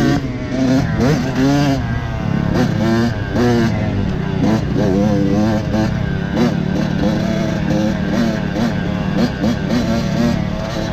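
Dirt bike engine revving up and down in repeated throttle blips, its pitch rising and falling every second or so, then holding steadier in the second half.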